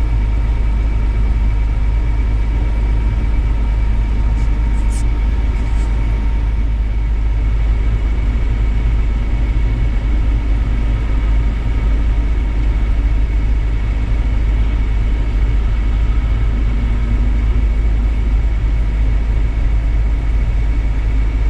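A vehicle engine idling with a steady, loud low rumble and a couple of faint, steady whining tones above it.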